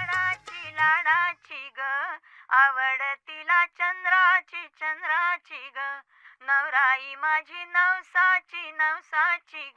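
A woman singing alone in short phrases with bending, ornamented notes. A low drum beat behind her stops within the first half second.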